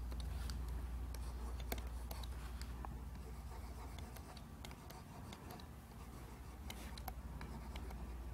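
Stylus nib tapping and stroking on the screen of a Huion Kamvas GT-191 pen display: faint, irregular ticks over a low steady hum.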